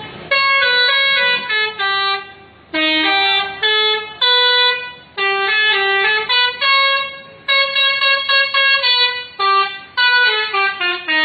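Multi-tone 'telolet' bus horn playing a tune of held notes that step up and down in pitch, with short pauses every second or two.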